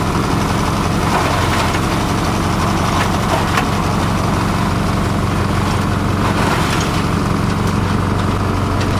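Esteban 9-in-1 multi-purpose chopper-shredder running steadily under load, shredding green plant material, with a few sharp clicks over its motor drone.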